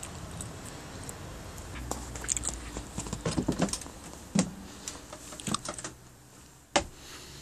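Clicks and knocks of a motorhome's side entrance door being opened and someone stepping inside, with a flurry of small clicks in the middle and a single sharp knock near the end.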